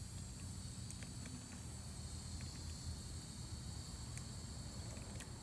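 Outdoor ambience: a steady high drone of insects with a low rumble under it and a few faint ticks.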